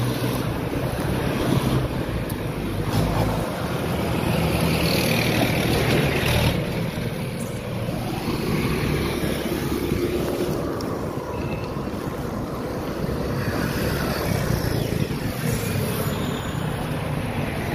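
Wind rushing over the microphone of a moving bicycle, mixed with the running engines of road traffic: cars, a truck and motorcycles.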